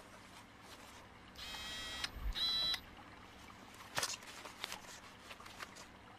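Two short electronic buzzing tones, the second shorter and higher-pitched, then a few faint scattered clicks.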